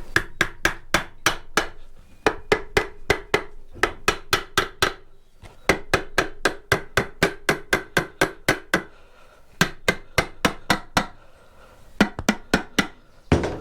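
Hammer tapping repeatedly on metal while a Benelli motorcycle engine is taken apart, about three blows a second in several runs broken by short pauses, each blow ringing briefly.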